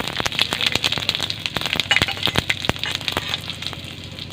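Panch phoron (five-spice whole seeds) and bay leaves crackling and popping in hot oil as the tempering is fried. The pops are dense at first and thin out near the end.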